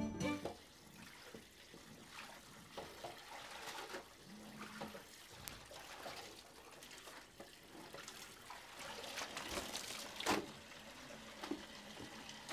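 Water trickling and splashing as wet cloth is handled by hand in a washbasin, with small irregular splashes and a louder splash about ten seconds in.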